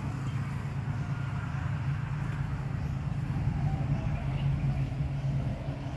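Steady low mechanical hum, even throughout, with no beeps or clicks over it.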